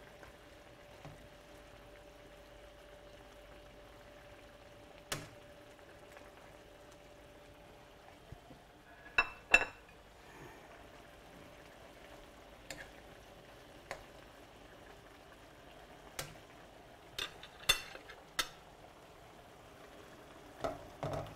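Chicken Marsala sauce of wine and broth simmering in a skillet with a low, steady bubbling, broken every few seconds by short clinks and knocks of a utensil against the pan.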